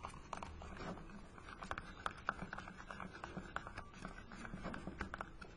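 Small 2.5 mm wood screw being turned in by hand with a screwdriver through a fibreboard plate into a 2 mm pilot hole, a tight fit. It gives faint, irregular little clicks and ticks as it turns.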